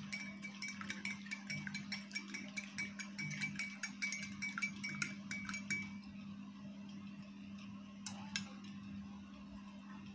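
A spoon stirring in a drinking glass, clinking rapidly against the sides with a faint ringing glass tone for about six seconds. It stops, then gives a couple more light clinks about eight seconds in.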